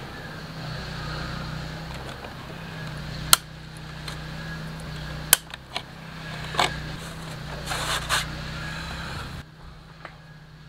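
Sharp clicks and light knocks of plastic parts and wiring being handled inside a motorcycle fairing, over a steady low hum that cuts off suddenly near the end.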